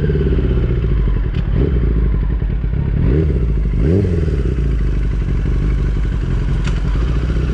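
Yamaha R6's 600 cc inline-four engine running loud under way, with two quick rises and falls in revs about three and four seconds in.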